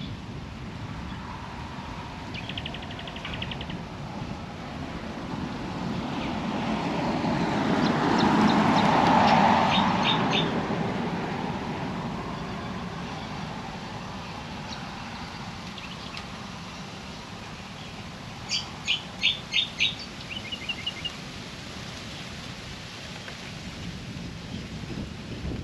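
Birds chirping over steady outdoor ambience: a quick trill near the start, a few short notes in the middle, and a cluster of sharp repeated chirps about three-quarters through. A broad swell of noise, the loudest sound here, builds for a few seconds and fades around the middle.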